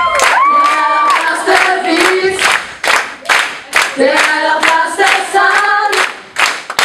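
A group of voices singing a song together without accompaniment, with hands clapping along in a steady beat about twice a second.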